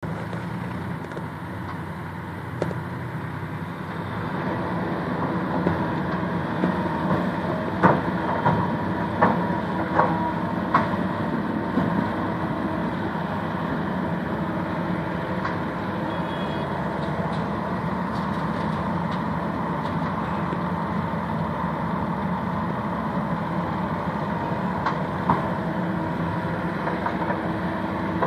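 Heavy diesel machinery running steadily while an excavator loads sand into a tractor, with a handful of sharp knocks clustered about a third of the way in.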